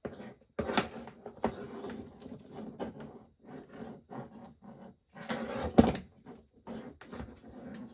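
Small parts and tools being handled on a workbench: irregular rubbing and clatter, with sharp clicks about a second in and a louder knock near six seconds.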